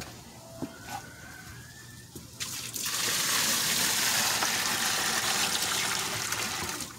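Pond water poured from a 5-gallon plastic bucket into a plastic storage tote: a steady splashing gush that starts about two and a half seconds in and lasts about four seconds, easing off as the bucket empties.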